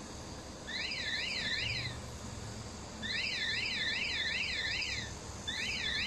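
Electronic warning alarm warbling steadily up and down in pitch, about four sweeps a second, sounding in three bursts with short gaps between them.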